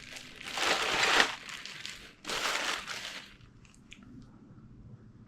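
Packaging being pulled off a parcel by hand, in two rustles of about a second each, then a few light clicks.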